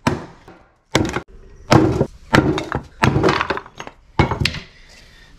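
A series of sharp thunks and knocks, about six in five seconds, some coming in quick doubles, like hard objects being handled and set down on a wooden surface.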